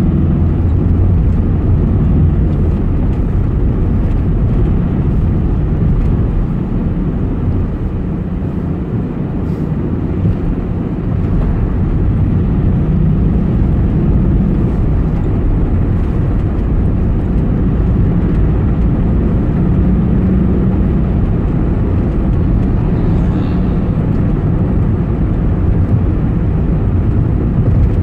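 Steady low rumble of a vehicle's engine and tyres on the highway, heard from inside the cabin while driving; it eases a little about a third of the way in, then picks up again.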